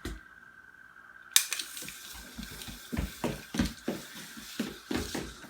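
Steel tape measure blade being pulled out by a toddler: a sharp click about a second and a half in, then a steady hiss, over a run of quick light thumps like small running footsteps.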